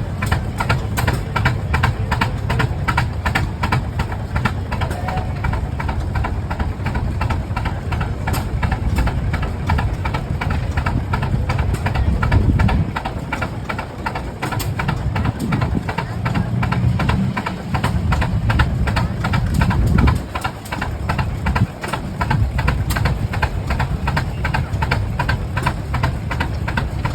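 Rumely OilPull tractors' slow two-cylinder engines running with a steady, rhythmic exhaust beat while belted to power a sawmill. The low rumble dips briefly a few times in the second half.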